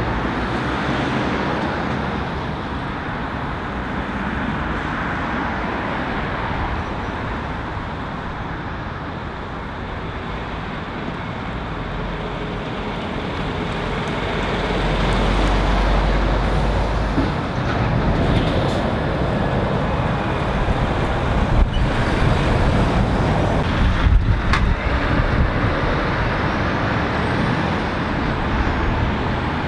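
Road traffic passing close by: cars and vans going round, with a MAN articulated lorry's diesel engine and tyres rumbling louder about halfway through. A couple of short sharp noises come about two-thirds of the way in.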